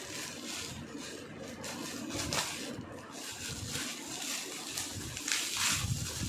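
Plastic and metallic foil gift wrapping crinkling and rustling as it is pulled open and handled, with louder crackles about two seconds in and again near the end.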